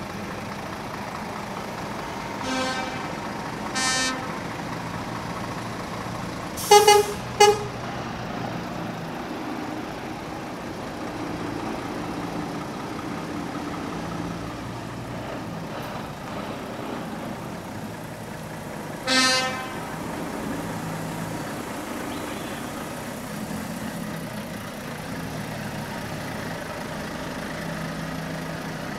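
Truck horns tooting over the steady running of truck engines: two shorter toots in the first few seconds, two loud blasts in quick succession about seven seconds in, and another toot around nineteen seconds.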